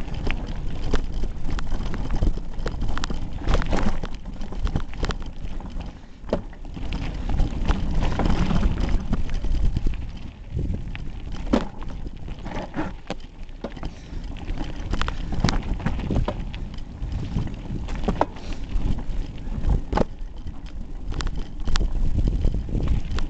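Hardtail mountain bike rattling and knocking over a rocky gravel trail, picked up by a camera taped to the handlebars. There are frequent sharp knocks from bumps and a steady rumble of wind on the microphone.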